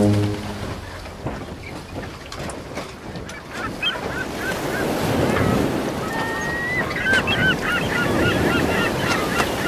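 A low horn blast cuts off right at the start, leaving wind and water noise. From a few seconds in, a flock of birds calls with many short, quick cries that grow busier toward the end.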